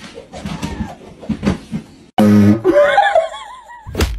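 A person laughing. About two seconds in, the sound cuts to a louder laugh with a wavering pitch.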